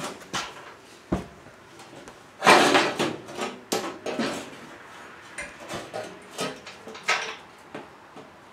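Irregular clanks and knocks of metal parts and tools being handled, with a louder clatter about two and a half seconds in and single sharp knocks scattered around it.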